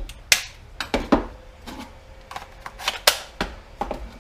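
Irregular sharp clicks and clacks, about ten of them, of hard plastic and metal being handled: a cordless power tool's battery pack being pulled out and a fresh one snapped in.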